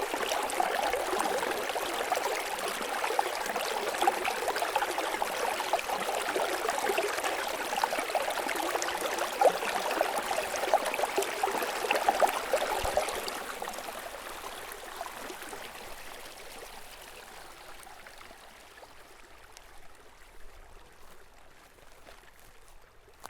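Small snowmelt stream running and trickling over rocks, a dense, steady water sound that fades gradually over the second half to a faint trickle.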